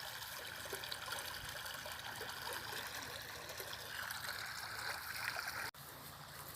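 Steady running water, a stream-like rushing and trickling of pumped river water flowing out onto dry grass. It drops away abruptly near the end.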